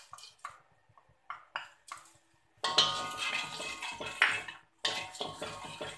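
A spoon clicks and scrapes against a porcelain saucer in a few short taps. From about two and a half seconds in, a wooden spatula scrapes and stirs spices around an aluminium wok, with a few sharp knocks among the scraping.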